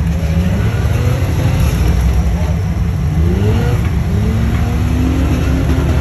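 Rock-crawler Jeep's engine running under load as it climbs a steep rock ledge, over a steady low rumble; about halfway through the revs begin to rise steadily.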